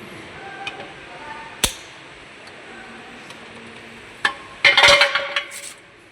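Metal knocks and clinks from steel gearbox parts being handled during a teardown: a sharp knock about a second and a half in, another about four seconds in, then a loud clatter of metal on metal lasting about a second.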